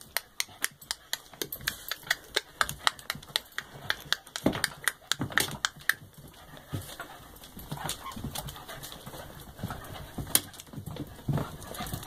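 A quick run of sharp taps, about four or five a second, thinning to scattered taps about halfway through, with one louder tap near the end.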